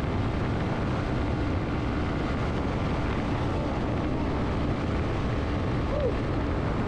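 Yamaha MT-15 V2's 155 cc single-cylinder engine running steadily at high speed, with wind rushing over the microphone.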